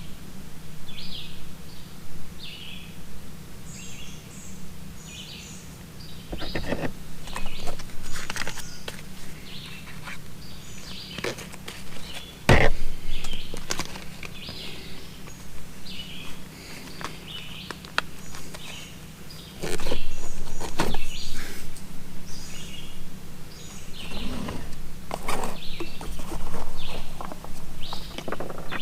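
Small birds chirping over and over, with scattered sharp clicks and knocks of parts and tools being handled, the loudest about twelve seconds in, and a steady low hum underneath.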